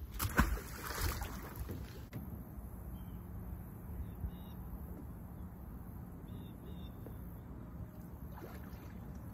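Outdoor ambience: a short burst of noise in the first two seconds, then a steady low hum with a few faint high chirps.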